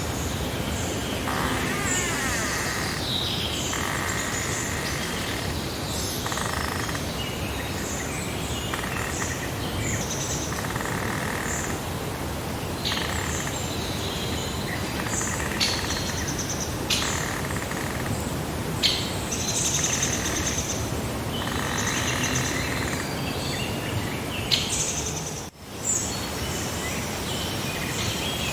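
Several small songbirds chirping and trilling in short, repeated calls over a steady outdoor hiss, with a brief drop in the sound about 25 seconds in.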